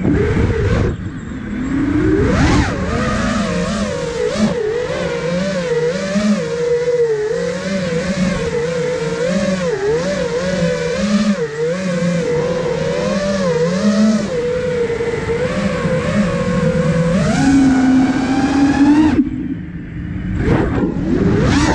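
Brushless motors and propellers of a 5-inch FPV quadcopter (iFlight Nazgul Evoque F5) whining, the pitch wavering up and down with the throttle. Near the end the pitch climbs, cuts out for about a second as the throttle drops, then comes back.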